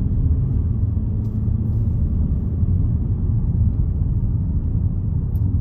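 Steady low rumble of a car on the move, heard from inside the cabin: engine and tyre noise at an even road speed.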